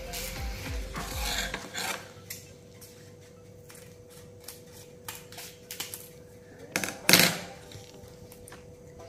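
A seasoning sachet rustling and crinkling as it is handled and cut open with kitchen scissors, with scattered small clicks and one loud, sharp sound about seven seconds in.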